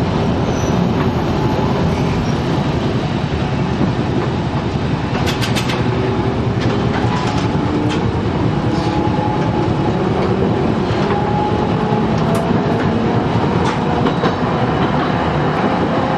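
Toyohashi Railway 3200-series tram's nose-suspended (tsurikake) traction motors running under power, heard from inside the car: a gear whine that slowly rises in pitch over a steady rumble of wheels on rail, with sharp clicks here and there.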